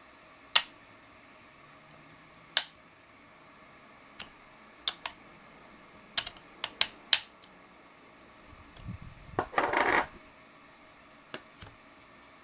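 Handling noise: about a dozen sharp clicks and taps at irregular intervals, with a short rustling scrape about ten seconds in.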